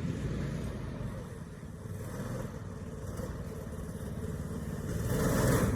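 Small engine of a mini wedge race car running on a test drive, its drone fading a little and then getting louder near the end as the car comes closer.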